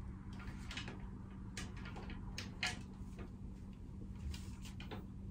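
Scattered light clicks and knocks of things being handled, over a steady low hum.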